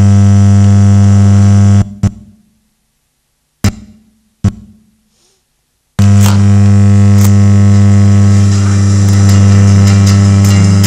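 A solar cell wired through a small mixer to speakers, turning flickering light into sound: a loud, steady electrical buzz that cuts off about two seconds in. A few separate clicks and pops follow. About six seconds in the buzz comes back with fast clicks over it.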